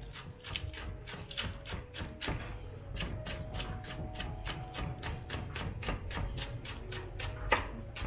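Kitchen knife slicing a spring onion on a wooden cutting board: quick, even taps of the blade on the wood, about three or four a second, with one sharper knock near the end.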